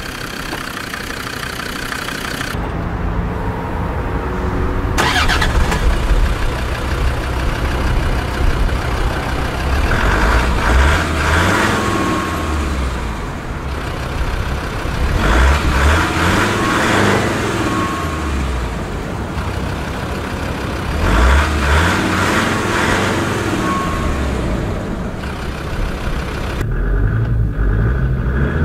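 Land Rover Discovery 2's Td5 five-cylinder turbodiesel running, revved up and let fall back to idle about four times, every five or six seconds.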